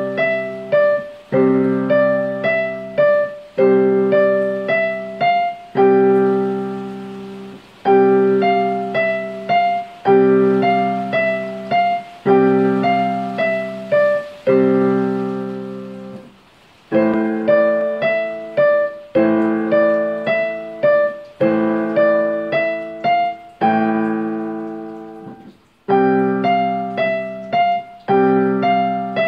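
Digital piano playing a slow, gentle piece: a low chord struck about every two seconds and left to fade, with a few higher melody notes over each one. The playing pauses briefly three times.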